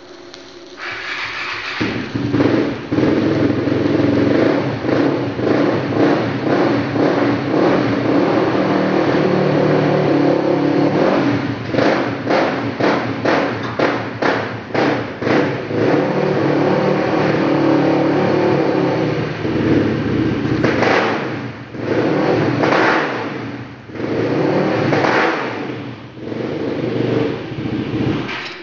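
DC stick welding on steel tube: the arc is struck about two seconds in and crackles and hisses over a steady low hum, with a run of sharp pops in the middle. Near the end the arc breaks off and restarts a few times.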